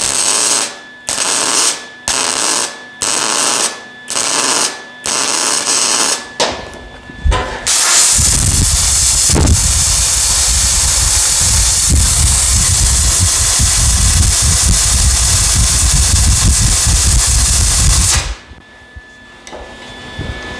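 MIG welder laying about seven short stitch welds, each a crackling burst of about a second with short gaps, joining a steel tube stake pocket to a sheet-steel truck box side. Then compressed air from a blow gun hisses steadily against the fresh welds for about ten seconds to cool them and keep the heat down, and stops suddenly.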